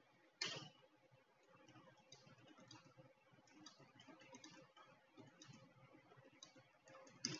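Faint clicking of a computer keyboard and mouse, with one sharper click about half a second in, scattered light taps after it, and another click near the end.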